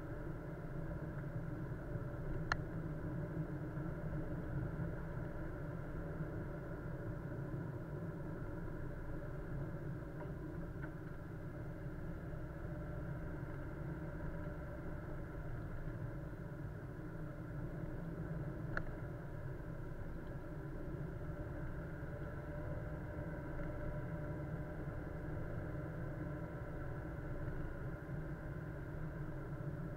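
Steady engine and road noise of a car, heard from a dashcam inside the cabin, with two sharp clicks, one a few seconds in and one a little past halfway.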